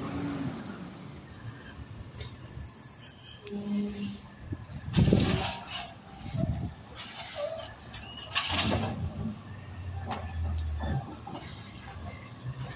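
Refuse truck's engine running at low speed, with two short, loud hisses of its air brakes a few seconds apart.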